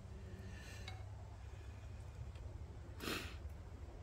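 Quiet cooking sounds: a spoon scraping and clinking faintly in a small metal pot in the first second, then a short breathy puff about three seconds in, over a low steady rumble.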